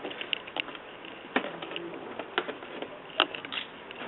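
Irregular sharp clicks and light taps of hands working the plastic body of an Axial SCX10 Deadbolt RC crawler off its chassis, about six in all.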